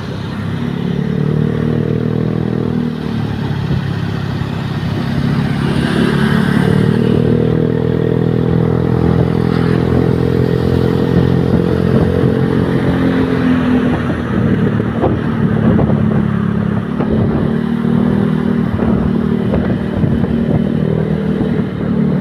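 A large vehicle engine, most likely a bus's diesel, running close by with a steady low hum whose pitch shifts a few times as the revs change.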